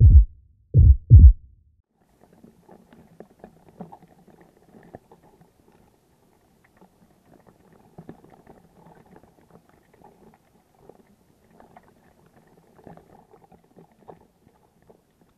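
Four deep, booming thumps in two quick pairs, a heartbeat-like sound effect, in the first second and a half. Faint crackling and clicking follow.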